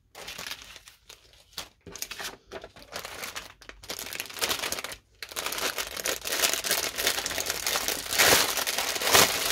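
Clear plastic bag crinkling as hands handle and open a bag of embroidery floss. It comes on and off at first, then runs steadily and louder from about halfway.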